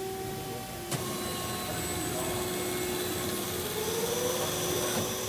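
Cosen M5 CNC automatic band saw running steadily, a machine hum with a single sharp click about a second in.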